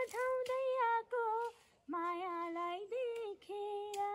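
A woman singing alone without instruments, in phrases of long held notes with a brief pause about halfway through.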